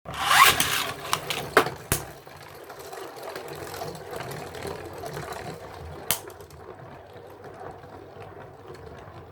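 Beyblade spinning tops in a plastic stadium: a rising whir at the start, several sharp clashes in the first two seconds and another about six seconds in, with a steady whirring of the tops spinning between hits. The 3D-printed Galahad Beyond, with a plastic disc and rubber ring, is battling a First Uranus.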